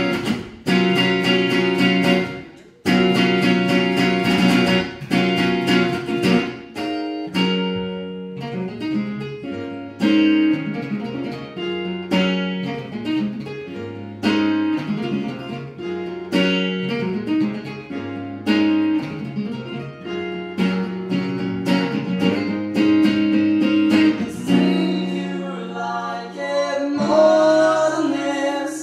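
A small acoustic band playing live: acoustic guitar, electric bass guitar and upright piano. Loud strummed chords for the first seven seconds or so, with a brief break about three seconds in, then a lighter passage of quicker note changes over a moving bass line.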